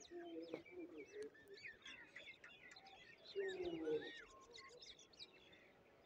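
Many small birds chirping and tweeting at once, overlapping short high calls and sweeps. A lower, louder call sounds about three and a half seconds in.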